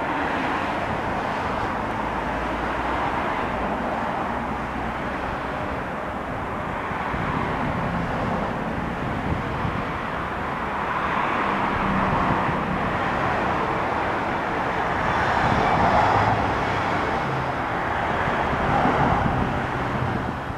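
Steady drone of a Cessna 172S Skyhawk's four-cylinder Lycoming piston engine and two-blade propeller, growing as the plane approaches at low altitude. It is mixed with a haze of road traffic noise that swells several times as vehicles pass.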